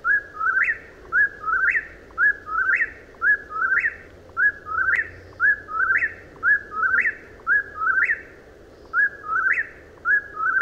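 Whip-poor-will singing its song over and over, about one phrase a second, each phrase ending in a quick rising note, with a short break a little past the middle.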